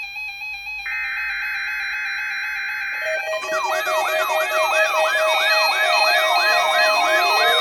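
Electronic alert tones: steady synthesized tones, then about three seconds in a rapid siren-like wail begins, falling sweeps about two and a half a second over a held tone.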